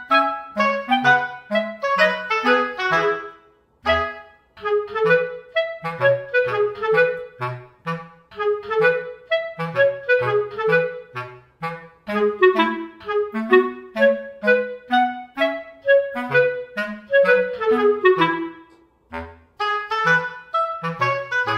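Instrumental background music: quick, short notes over a lower bass line, with brief breaks about four seconds in and again near nineteen seconds.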